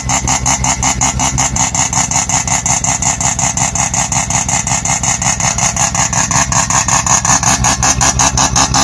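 Mazda RX-7's two-rotor Wankel rotary engine idling, its exhaust note rapid and evenly pulsing.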